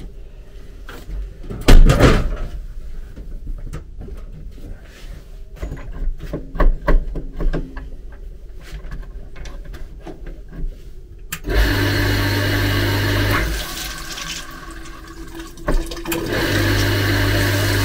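Water let into a railway passenger car's toilet to test it for leaks: two spells of rushing water with a low buzz, the first about two seconds long starting past the middle, the second near the end. Before them come light knocks and clicks of handling, with one louder thump about two seconds in.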